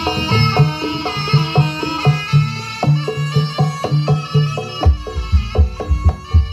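Javanese jaranan (kuda lumping) ensemble music: hand drums beating a quick rhythm under a reedy wind instrument and fast repeated melodic notes.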